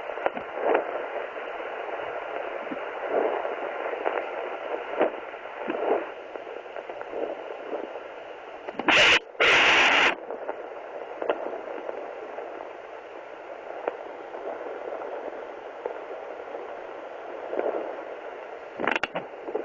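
Handheld fetal Doppler monitor hissing with static through its small speaker as the probe is searched over the belly, with soft whooshes now and then. About halfway through come two loud scraping rasps from the probe being moved.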